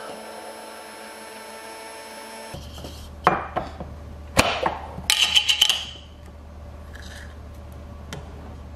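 Immersion blender motor whirring steadily in a plastic beaker of whipping cream, stopping about two and a half seconds in. Then sharp clinks, knocks and a run of loud scraping clatters from a glass jar and its metal screw lid being handled and opened.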